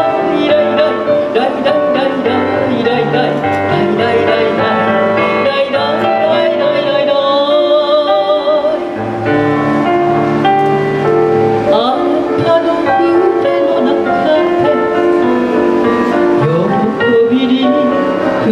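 A woman singing a chanson into a microphone over instrumental accompaniment, her held notes wavering with vibrato. Around the middle, her voice drops out for a few seconds while the accompaniment carries on.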